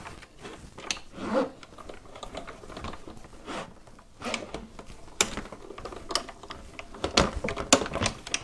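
Irregular clicks, taps and rustles of cardstock and die-cutting tools being handled, the sharpest clicks about five and seven seconds in, as a snowflake die-cut is set up.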